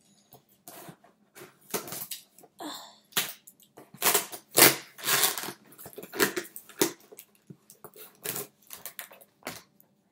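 Scissors cutting through the packing tape of a cardboard box and the box being pulled open, with irregular rasping, crackling and rustling of cardboard and packaging, loudest about halfway through.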